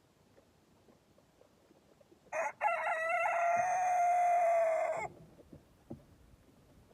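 A rooster crowing once: a short opening note, then one long held call of about two and a half seconds that cuts off sharply.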